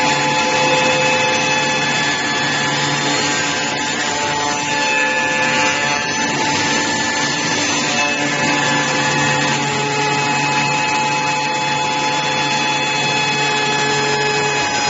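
Wood copy shaper milling machine running, its cutters shaping wood with a steady machine whine and cutting noise.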